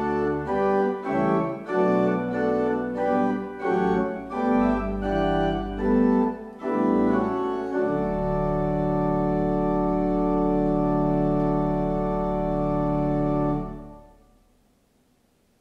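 Church organ playing a slow hymn in full chords with a deep pedal bass, ending about eight seconds in on one long held chord. The chord is released about two seconds before the end and dies away in the church's reverberation.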